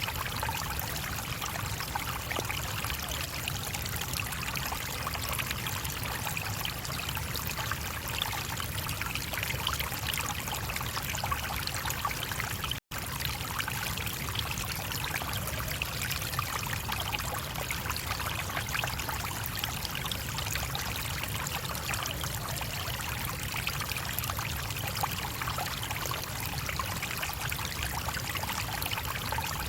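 A stream flowing steadily, its water trickling and rushing without a break, except for a dropout to silence for an instant about halfway through.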